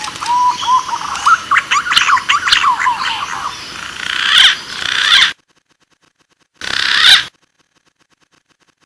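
Green pigeon (punai) calls: rising whistled notes, then a dense flurry of quick chirping and chattering notes for about five seconds that cuts off abruptly. A short harsh, rasping call follows about seven seconds in.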